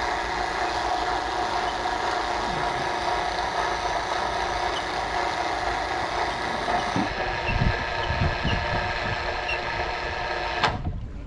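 A steady engine hum at idle, unchanging, that cuts off abruptly near the end, with a few low thuds a little after halfway.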